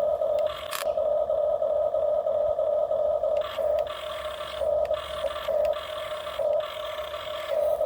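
Small electric motors of radio-controlled construction models whining steadily at one pitch, then stopping and starting again several times in quick succession in the second half as the controls are worked.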